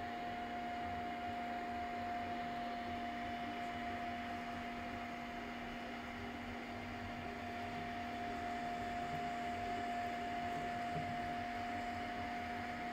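Modified Creality Ender 3 V2 3D printers running: a steady whir of cooling fans with an unchanging high whine and a lower hum.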